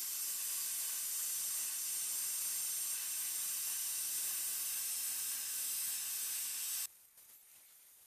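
Handheld plasma cutter cutting steel: a steady, loud hiss that cuts off abruptly about seven seconds in, leaving a much fainter hiss.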